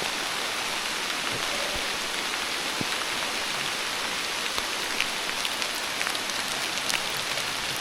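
Steady rain falling, an even hiss with scattered sharper ticks of individual drops.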